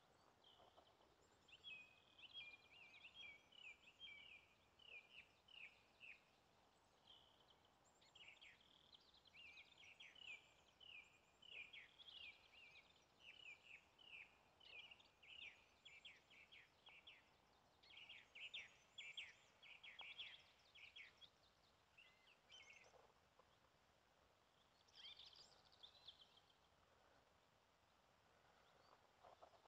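Songbirds singing quietly: quick runs of high chirps and short trills, one phrase after another with brief pauses.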